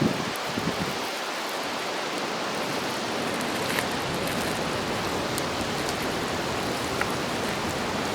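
Food frying on an iron griddle plate over a campfire: a steady sizzling hiss with a few faint pops. A couple of low knocks come in the first second.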